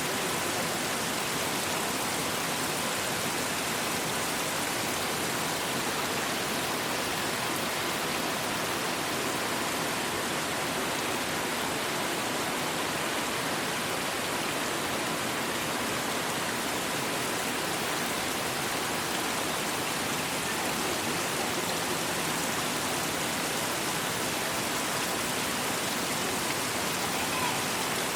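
Mountain waterfall and its spray drops falling on leaves: a steady, even rush of water.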